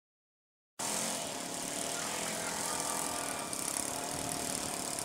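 Silence for under a second, then a radio-controlled model airplane's engine and propeller cut in suddenly and run steadily, with a hiss above them.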